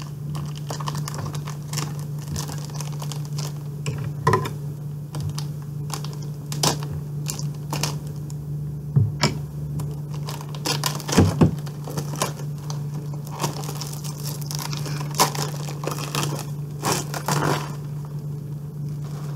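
Plastic shrink wrap being torn and peeled off a VHS box set by hand: irregular crinkling and tearing with scattered sharp crackles, over a steady low hum.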